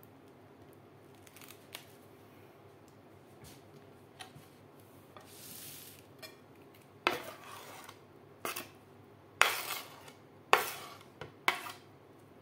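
Diced fruit scraped off a wooden cutting board into a glass bowl with a knife: a few sharp clinks and knocks of knife and board against the glass bowl in the second half, after a brief scrape of the bowl sliding on a stone counter near the middle.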